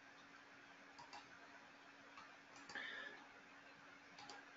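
Near silence with a few faint computer mouse clicks, about a second in, midway and near the end, over a faint steady hum.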